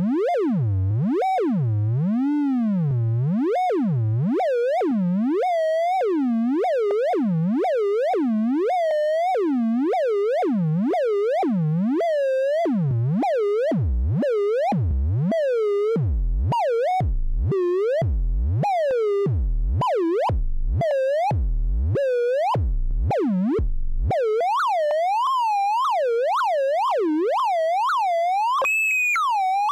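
Synthesizer oscillator whose pitch is swept up and down by three sine LFOs mixed and rectified through a Plankton Electronics Earwig eurorack module, giving a repeating pattern of bouncing glides, about one a second, with sharp turns. From about halfway through, the dips plunge to a deep low tone. In the last quarter the pitch stays higher with quicker, smaller wobbles as the mixer knobs are turned.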